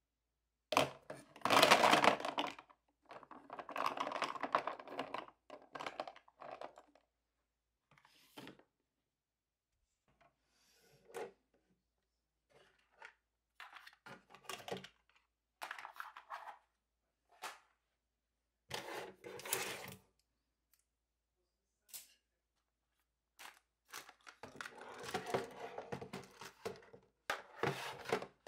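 Pens, markers and plastic drawers and trays being handled, clattering in repeated bursts of clicks and rattles with quiet gaps between.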